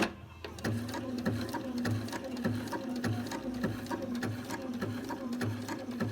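Sewing machine starting with a sharp click, then running steadily with an even rhythm as it stitches along a paraglider line.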